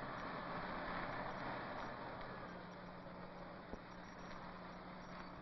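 A car driving up and pulling in: steady engine and road noise that slowly eases off, over the constant hum and hiss of an old film soundtrack. There is one faint click a little past halfway.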